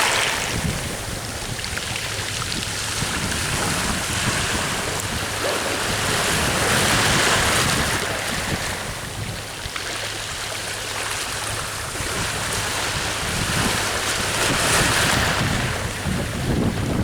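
Sea waves washing onto the shore, swelling and fading about every seven or eight seconds, with wind buffeting the microphone.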